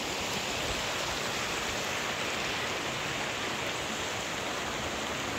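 Steady rushing noise of running water, even and unbroken, cutting off abruptly at the very end.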